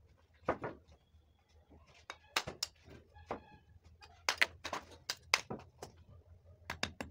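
Bricklayer's trowel knocking and chipping a clay brick and tapping bricks down into mortar: a series of sharp clicks and knocks in uneven clusters.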